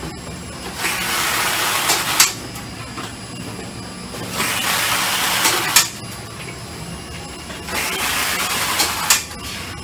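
Packaging-line machinery running: a steady conveyor hum under a hiss that comes about every three and a half seconds, lasts over a second each time, and ends in a sharp snap.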